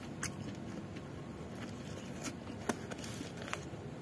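Quiet eating sounds: a few faint, sharp clicks spread over the few seconds as food is chewed, over a steady low background hum.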